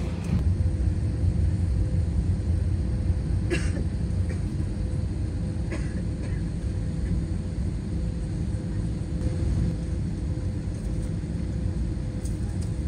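Steady low rumble inside the cabin of a parked Airbus A320, with a steady mid-pitched whine under it. Two brief sharp sounds, like a knock or a cough, come about three and a half and six seconds in.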